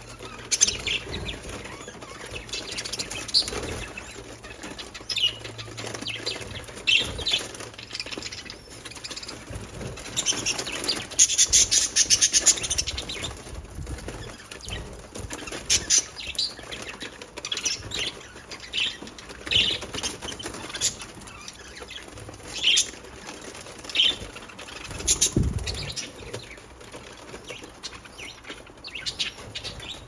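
A flock of budgerigars chirping in many short, sharp calls while they feed on fresh grass, with rustling and wing flutters among them. There is a dense run of rapid sound about eleven seconds in, and a low thump near the 25-second mark.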